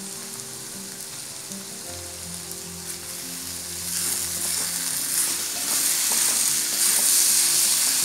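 Ivy gourd strips sizzling in oil in a pan while a wooden spatula stirs them, the sizzle growing louder about four seconds in. This is the sound of the gourd shrivelling and curling as it fries down, the cook's sign that it is nearly done.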